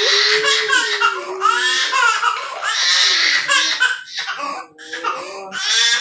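A toddler crying loudly in repeated high-pitched wailing bouts, with a quieter gap about two-thirds of the way through.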